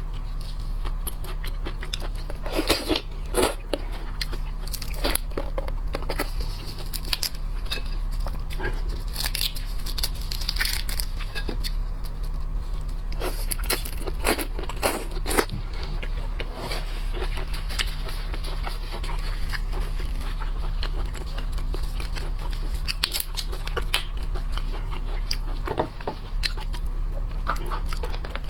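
Close-miked eating of seafood: biting, crunching and tearing in scattered sharp clicks and short crunches, with chewing between them, over a steady low hum.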